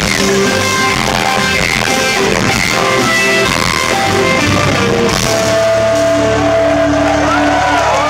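Live rock band with electric guitars, bass, keyboards and drums playing loudly. About five seconds in the lowest, deepest sound drops away and held notes ring on, with a few sliding tones near the end, as the song draws to its close.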